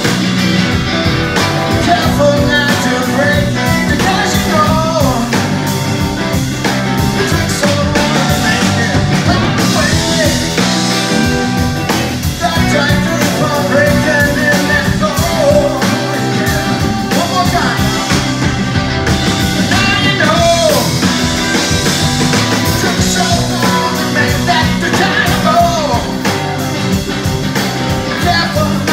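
Live rock band playing loud and steady: electric guitars, electric bass and a drum kit.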